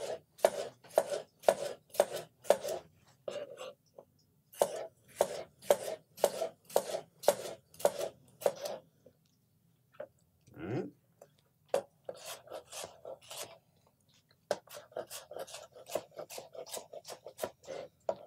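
Serrated knife slicing through Roma tomatoes and striking the cutting board, in runs of steady strokes about two to three a second with short pauses. Later the strokes turn quicker and closer together as the slices are diced.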